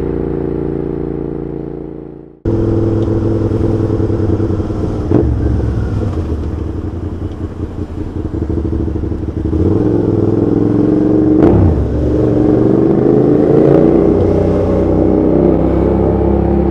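Suzuki SV650 V-twin running loud through an SP Engineering stubby GP exhaust with the baffle removed, riding in traffic. The sound fades and breaks off abruptly about two seconds in, then resumes. In the second half the note rises in pitch as the bike accelerates.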